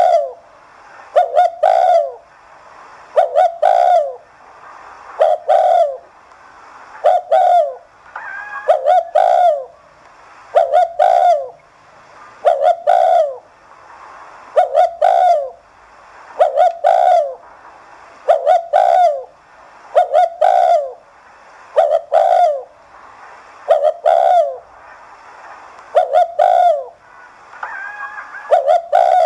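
Spotted dove cooing: a short phrase of a few falling notes, repeated about every two seconds. It is the 'thúc gù' coo that keepers use to stir other male doves into calling.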